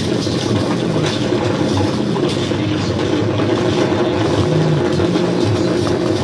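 Loud distorted electronic noise drone from a chain of effects pedals, a dense steady texture with no beat.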